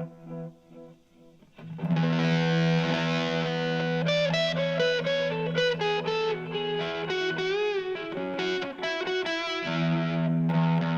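Overdriven electric guitar played through a TC Electronic Flashback X4 delay pedal: delay repeats die away to near quiet, then a chord rings out, followed by a single-note lead line with string bends and vibrato, and a chord is struck again near the end.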